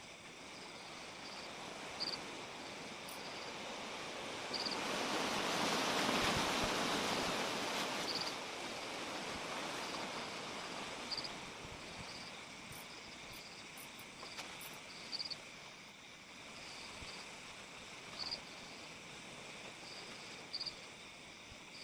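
Crickets and other night insects chirping in a steady chorus, with short repeated chirps every second or two. About a quarter of the way in, a rushing noise swells up and fades out over several seconds.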